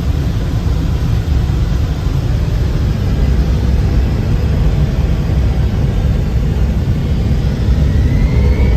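C-17 jet transport's turbofan engines and airflow in flight: a steady deep rumble with a hiss. Near the end a rising whine comes in above it.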